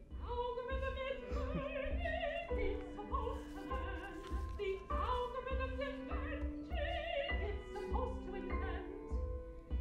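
Operatic singing with vibrato, long held notes over a steady electronic bass beat of about two pulses a second, starting suddenly at the outset.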